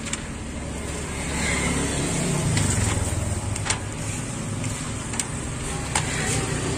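A motor vehicle's engine running close by, swelling and easing off over a few seconds. Three sharp clicks over it come from a plastic spatula knocking against a stone mortar as fruit is tossed in sauce.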